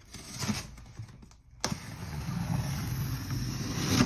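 Clear packing tape ripped off along the seam of a cardboard shipping box: a little handling of the box, then a long tearing rip that starts suddenly under two seconds in and runs over two seconds, ending with a sharp snap.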